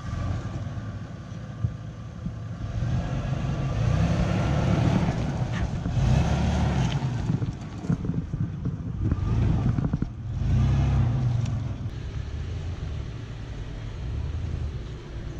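Toyota 4Runner's engine revving in repeated swells as the SUV crawls over trail rocks, with a few sharp knocks in between.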